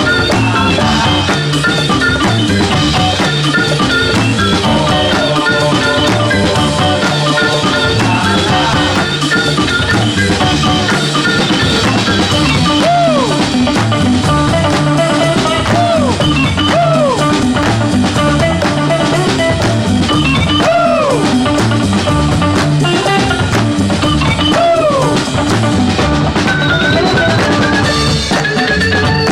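Upbeat background music with a drum kit keeping a steady beat. From about halfway, a recurring high note swoops up and falls back roughly every two seconds.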